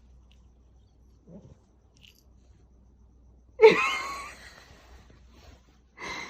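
One loud, sudden vocal cry, a little over halfway through, that wavers in pitch and trails off over about a second.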